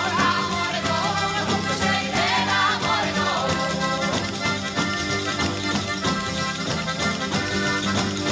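Background music: an instrumental tune with long held chords under a wavering melody.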